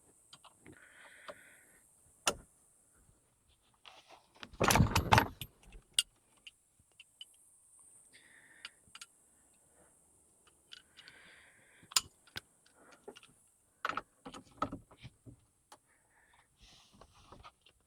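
Metal hand tools clinking and rattling, with scattered knocks and a loud clatter lasting about a second, some four and a half seconds in.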